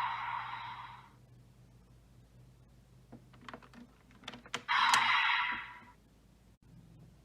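Bandai Desire Driver toy belt being worked with a Legend Raise Buckle. A noisy electronic sound from the belt fades out in the first second. Several sharp plastic clicks follow as the buckle is handled, then a second burst of static-like noise lasts about a second.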